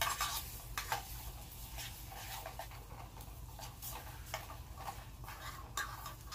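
Spam heating in a metal canteen cup over a stove, giving irregular light crackles and pops over a steady low rumble.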